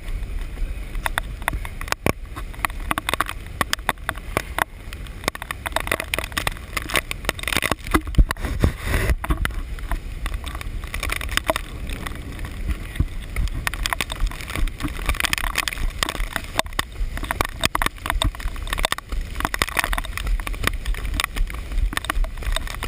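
Muffled handling noise from a handheld GoPro inside its waterproof case: a continuous low rumble with dense, irregular knocks and rubbing as the camera is jostled on the move.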